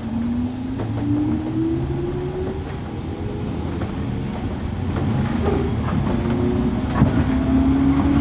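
MT55A traction motors of a JR Kyushu 103 series 1500 electric car whining under power, heard from inside the car, their pitch climbing as the train gathers speed, over a low running rumble with a few sharp rail knocks.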